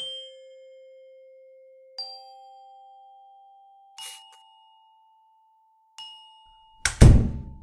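Sparse score music: single bell-like mallet notes struck one every two seconds, stepping up in pitch, each ringing out long. Near the end a short, loud rush of noise is the loudest sound.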